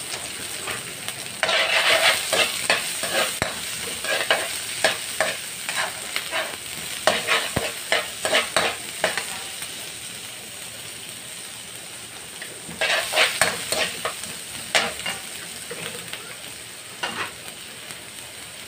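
Julienned ginger and chopped red onion sizzling in hot olive oil in a wok, with a long metal spatula scraping and stirring across the pan in several spells of quick strokes.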